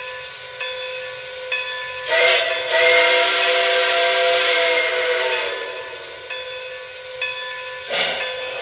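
Lionel Legacy Camelback 4-6-0 model steam locomotive's onboard sound system blowing a chime steam whistle in one long blast of about three seconds, starting about two seconds in, with a short burst of sound near the end.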